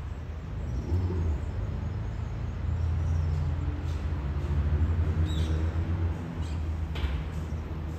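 A low, steady rumble of distant motor traffic, louder in the middle, with a few short bird chirps over it, one about five seconds in and another near seven seconds.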